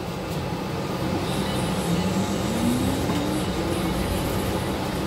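Steady engine and road rumble inside a moving city bus, with a faint tone that rises in pitch about halfway through.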